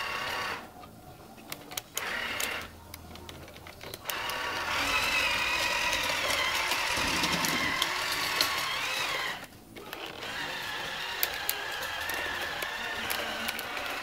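New Bright radio-controlled Caterpillar D10 toy bulldozer's electric drive motors and gearboxes whining. The whine starts and stops in short bursts at first, then runs for several seconds, stops briefly, and runs again. Gravel clicks and crunches as the tracks and blade push it.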